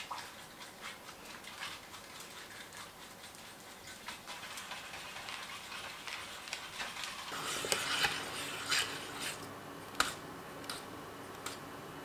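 Faint light ticking, then from about seven seconds in a coiled wire whisk stirring in a stainless steel saucepan, with irregular metal clinks against the pan over a low steady hum.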